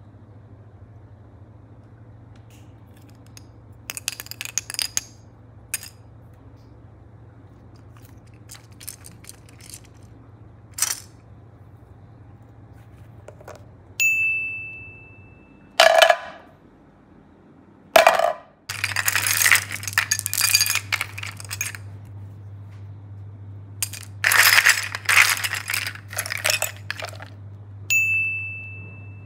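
Small hard toys, plastic pieces and glass marbles, clicking and clattering against each other in scattered taps and then dense quick bursts. A short bright chime rings twice, about halfway through and near the end.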